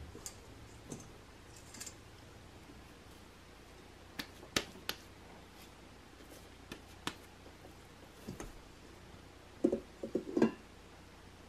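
Soft handling sounds of oiled hands pulling bread dough off a stand mixer's dough hook and patting it: scattered light taps and slaps. Near the end comes a quick cluster of louder knocks and slaps as the dough goes back into the stainless steel bowl and the bowl is handled.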